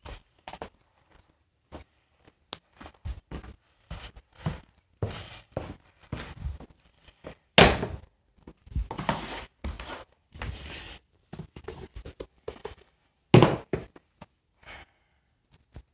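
Scattered knocks and rubbing of a phone being handled while canvas slip-on shoes are moved about on a countertop, with two louder thuds, one about halfway through and one near the end.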